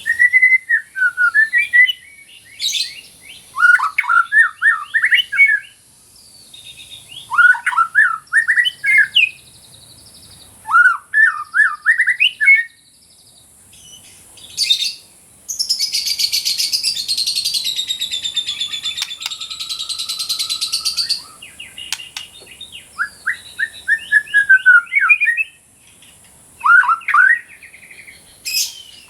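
White-rumped shama (murai batu) singing in short repeated bursts of fast, gliding whistled notes, with a long harsh, buzzy chatter about halfway through.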